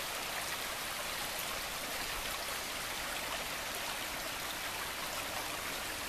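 Small headwater mountain creek flowing: a steady rush of running water.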